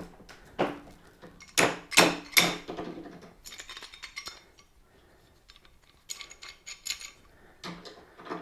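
Metal hand tools clinking and clanking against the mower's handle as a plumber's monkey wrench is fitted to twist it, with a few loud knocks about two seconds in and lighter clicks after.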